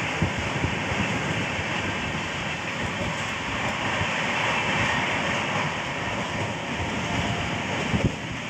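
Passenger express train running at speed, heard from inside a sleeper coach: a steady rumble and rattle of the wheels on the rails with rushing air. A sharp click comes about 8 seconds in, after which it is slightly quieter.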